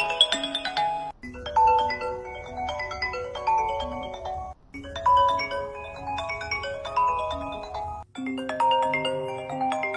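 iPhone ringtone playing: a bright tune of short notes that loops about every three and a half seconds, with a brief break before each repeat.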